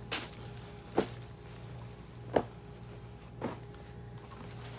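Clothing being handled: four brief rustles and knocks about a second apart as a pair of jeans is set down and the next pair picked up, over a faint steady hum.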